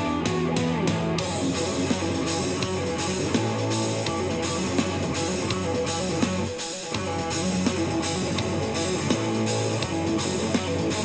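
Electric guitar from a single-cutaway solid-body guitar played live through an amplifier: a continuous stream of lead notes over sustained low bass notes that change every few seconds, with a brief dip a little past the middle.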